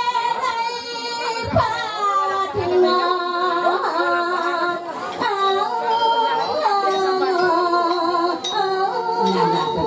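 A woman singing long held notes that slide and bend in pitch.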